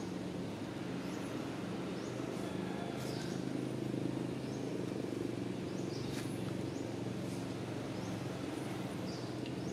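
Outdoor ambience: a steady low hum, like a distant engine, with short high chirps scattered through it about once a second.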